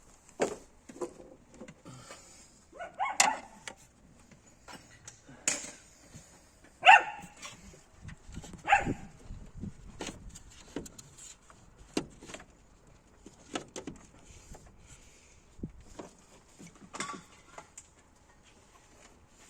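A dog barking about four times, the loudest bark about seven seconds in, amid scattered sharp clicks and knocks.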